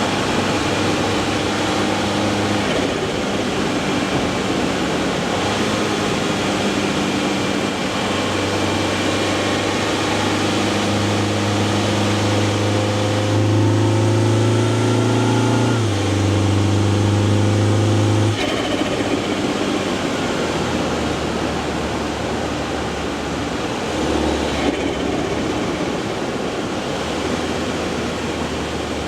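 Mini Clubman S's B48 2.0-litre turbocharged four-cylinder engine pulling under load, with a faint turbo whistle. The engine note climbs through the middle, steps down once, then falls off suddenly as the throttle is lifted, leaving a lower steady drone.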